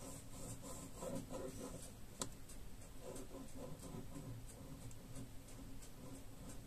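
Pen scratching on paper in short, curling strokes, with one sharper click about two seconds in.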